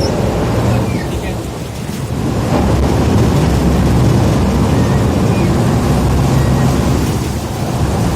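River ferry's engine running with a low rumble over water wash, swelling about two and a half seconds in.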